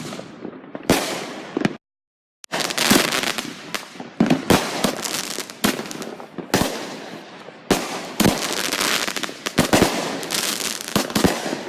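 Consumer fireworks going off in quick succession: repeated sharp bangs, some in rapid clusters, each trailed by crackling. The sound cuts out completely for about half a second near two seconds in.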